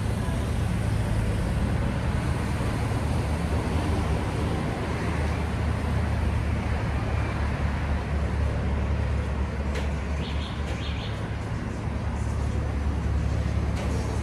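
Busy street traffic: a steady dense rumble of passing motor vehicles. A few short high clicks and chirps cut through about ten seconds in.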